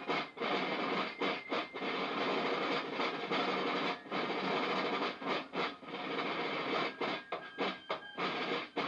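Fife and drum corps playing: rope-tension snare drums beating rapid strokes and rolls, with fifes sounding short high notes over them.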